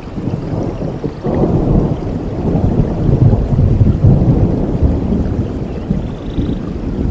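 A long roll of thunder that swells about a second in, rumbles low and loud, and eases off near the end, over falling rain.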